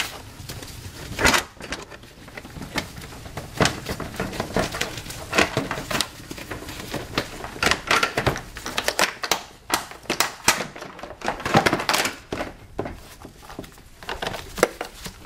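Hands working the air box assembly, with its hoses and sensor connectors, loose in a car's engine bay: a run of irregular plastic clicks, knocks and crinkling, with a busier cluster of knocks about three-quarters of the way through.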